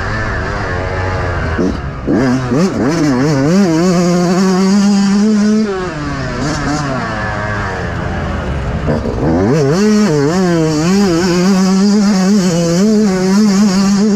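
Yamaha YZ125 two-stroke motocross engine revving hard, with quick rises in pitch as it pulls up through the gears. It eases off to lower revs about six seconds in, then climbs back to high revs and holds there.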